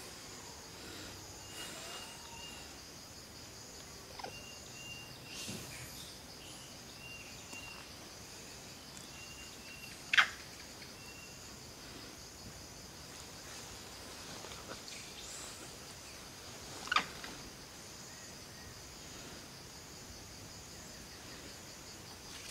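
Forest ambience: a steady high insect drone, with short whistled bird notes repeating every couple of seconds. Two brief sharp calls, the loudest sounds in it, come about halfway through and again some seven seconds later.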